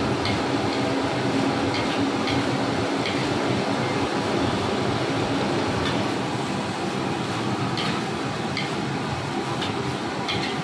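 Metal spatula scraping and clinking against a steel wok as fried rice is stir-fried: about a dozen short sharp clinks, irregularly spaced, over a steady loud rushing roar.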